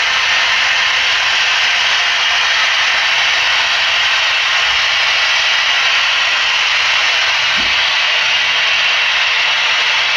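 Long HO-scale model coal train rolling along the track: a steady, even rushing noise of many wheels on rail, with no engine tone.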